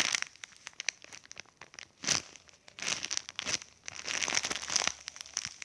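Irregular crinkling and crackling as a squishy toy is handled and squeezed, in several short bursts.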